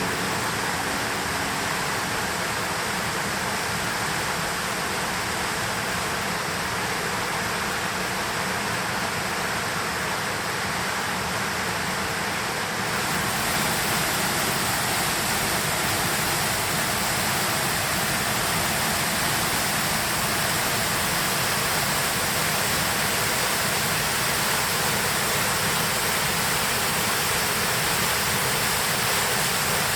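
Steady rushing of running water, such as a mountain stream or small waterfall, getting a little louder about 13 seconds in.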